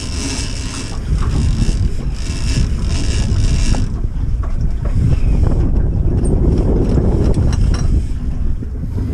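Wind buffeting the microphone on a small open boat at sea, a steady low rumble, with a high hiss that stops about four seconds in.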